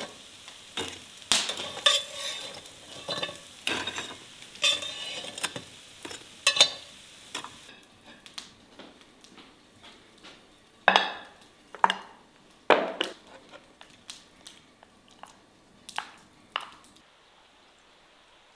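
Kitchen clatter: utensils clicking and scraping against a frying pan over a faint sizzle for the first several seconds, then the sizzle stops and ceramic plates and bowls knock and clink as they are handled and set down.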